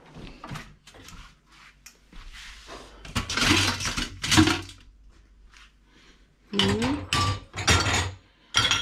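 Kitchenware clattering while a dishwasher is unloaded: a drawer pushed shut with a few light clicks, a louder clatter a few seconds in, then a run of sharp knocks and scrapes of crockery against the wire rack near the end.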